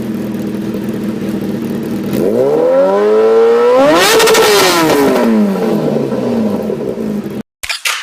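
Superbike accelerating hard and passing close by: its engine note climbs in pitch and then drops as it goes past, over a steady engine drone at the start. The sound cuts off abruptly near the end.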